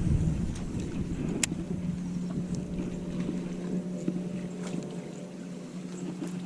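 A boat motor running with a steady low hum, under wind rumble on the microphone that eases after the first couple of seconds. A few faint clicks sound over it.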